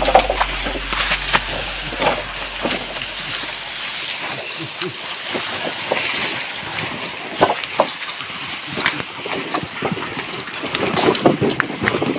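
A bundle of wooden poles being dragged by a carabao over a dirt trail, scraping and rustling continuously, with irregular knocks as the poles bump over the ground.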